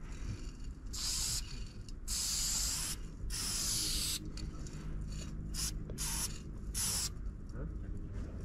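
Aerosol spray paint can hissing in repeated short bursts, each a second or less with brief pauses between, as paint is sprayed onto a bus panel.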